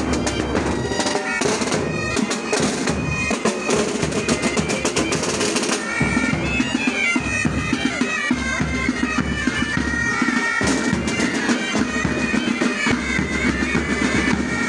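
Pipe band playing: bagpipes carrying a melody over their drones, with snare and bass drums beating time. The drumming is densest in the first half, and the pipe tune stands out more clearly after that.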